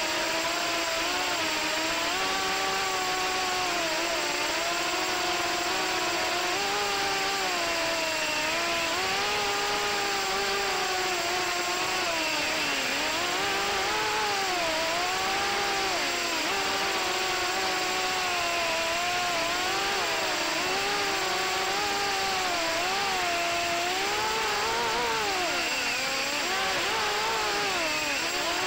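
FPV racing quadcopter's brushless motors and propellers whining, the pitch rising and falling with each change of throttle, over a steady rush of air.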